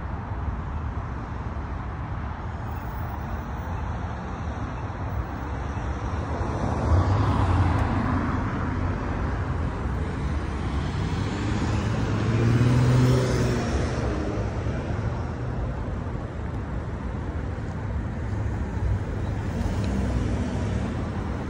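Road traffic: cars driving past over a steady rumble, one passing louder about seven seconds in and another, with a clear engine note, around the middle.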